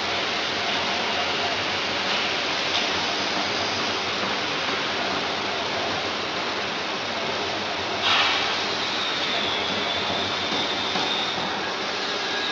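Five-head CNC thin glass cutting machine running, a steady hiss throughout, with one short louder burst of hiss about eight seconds in.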